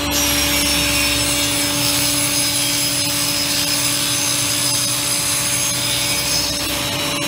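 Table saw running steadily while cutting 6 mm marine-grade plywood: a loud, constant sawing noise with a steady hum under it.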